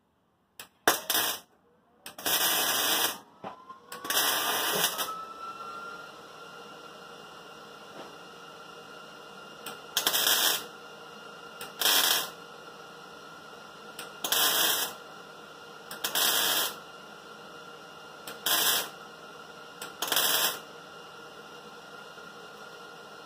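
Welder laying short tack and stitch welds on a car's sheet-metal quarter panel: about nine crackling bursts of arc, each under a second long. Three come close together, then after a pause the rest come about two seconds apart, with a steady hum between them.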